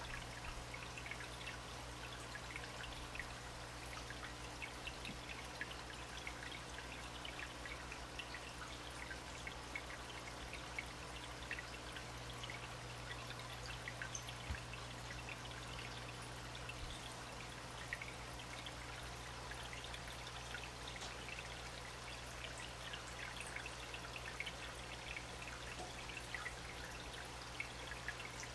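Steady trickling and splashing of running water, flecked with small drips, over a low steady hum.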